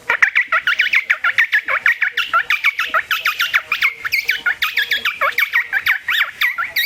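A man imitating the call of a common tailorbird with his mouth: a rapid, unbroken string of short high chirps, several a second.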